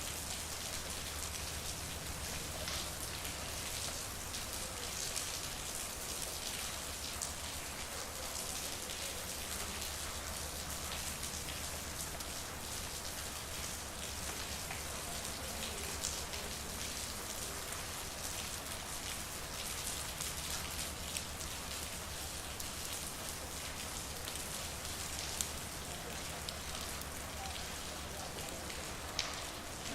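Steady rain falling, an even hiss with scattered sharper drops landing close by, over a low steady hum.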